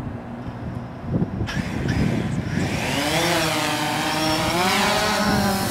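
DJI Phantom 3 quadcopter's motors and propellers spooling up from idle to takeoff thrust about a second and a half in: a rising whine with propeller buzz, then a steady pitched whine as it lifts off to hover.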